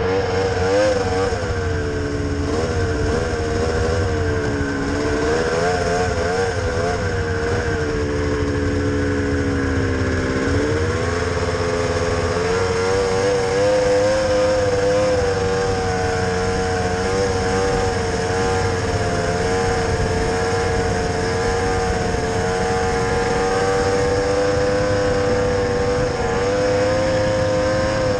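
Snowmobile engine heard close from the rider's seat while riding. Its pitch rises and falls with the throttle for the first ten seconds or so, dips, then climbs about eleven seconds in and holds steady at cruising speed.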